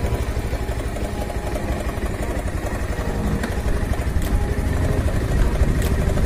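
Motorcycle engine running steadily at low speed, a low rhythmic thrum that grows a little louder in the second half.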